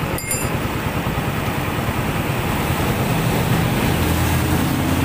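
Suzuki Raider 150's single-cylinder four-stroke engine running steadily, its new manual cam chain tensioner adjusted until the timing chain's tik-tik rattle is gone.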